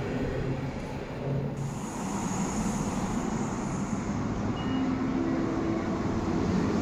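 Electric S-Bahn suburban train sound in an underground station: a steady rumble that changes abruptly about one and a half seconds in, with a faint high hiss for the next two or so seconds.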